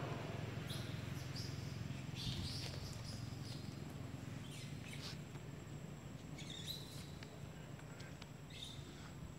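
Short, high-pitched animal chirps, about eight scattered calls, over a low steady hum.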